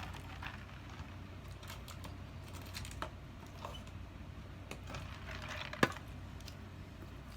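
Small clicks and crackly rustles of someone eating a fast-food burger, chewing and handling the paper wrapper, with one sharper tap about six seconds in. A steady low hum runs underneath.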